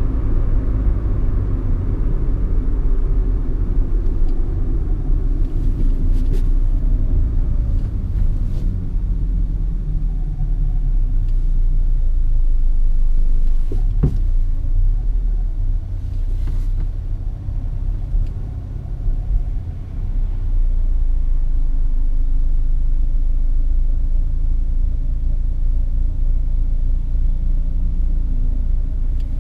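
Peugeot 206 being driven, a steady low engine and road rumble that eases off for a few seconds past the middle and then builds again. A single sharp click sounds near the middle.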